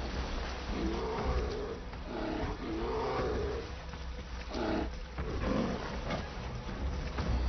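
Grizzly bears roaring and growling as they fight: a run of long, wavering roars in the first few seconds, then shorter, sharper ones, over the rush of river water.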